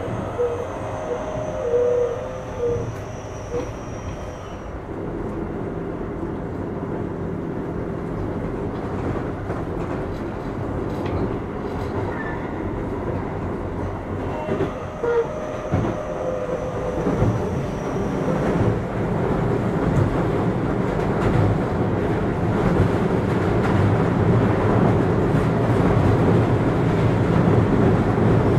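Running sound inside a Keio 8000 series electric train car with Hitachi SiC traction equipment, heard in motion: a steady wheel-and-rail rumble with clacks over rail joints, growing louder through the second half.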